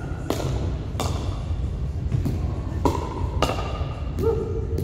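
Pickleball paddles hitting a hard plastic ball in a rally, about four sharp pops spread unevenly over the few seconds, echoing in a large gym hall.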